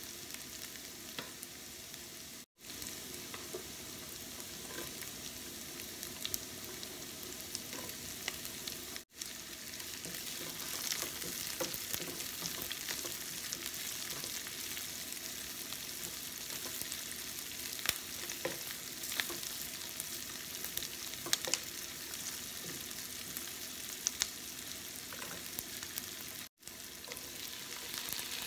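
Minced garlic and chopped onion frying in oil in a nonstick pan: a steady sizzle with scattered ticks and scrapes from a wooden spatula stirring. The sizzle drops out for a split second three times.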